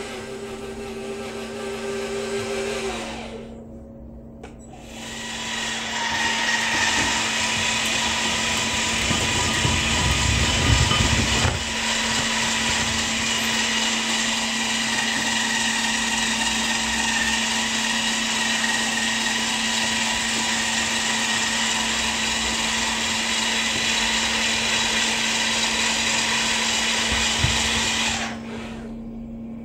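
Scale-model Caterpillar 5110B excavator running on its electric motors: an even mechanical whir over a steady hum. It drops away about three seconds in, builds back up to a loud, steady whir, and falls off again near the end.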